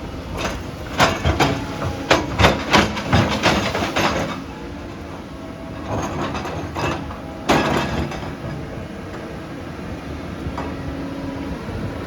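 Excavator at work: its diesel engine running steadily under a rapid series of metal clanks and knocks for about the first four seconds, then one more heavy clank near the middle.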